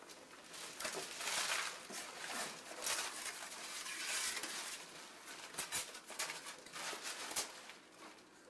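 Wrapping paper tearing and crinkling as a present is unwrapped, then a cardboard gift box being opened and its packing rustled, with a couple of sharp snaps near the end.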